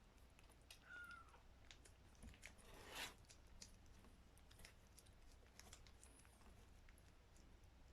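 A 27-day-old kitten gives one short, thin mew about a second in. Soft scattered clicks and a brief rustle about three seconds in, all faint.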